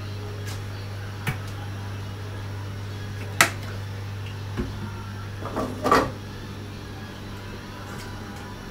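A few sharp clicks and knocks of kitchen items being handled, over a steady low hum. The loudest click comes about three and a half seconds in, with a short cluster of knocks around six seconds.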